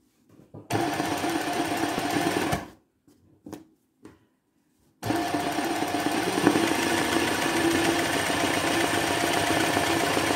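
Sewing machine running at speed for free-motion embroidery, the needle stitching thread into cloth. It starts with a run of about two seconds, stops briefly, then runs steadily again from about five seconds in.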